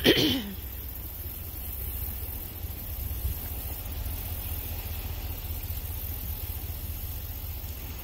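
A person briefly clears their throat in the first half second. A steady low rumble of wind on the phone's microphone follows.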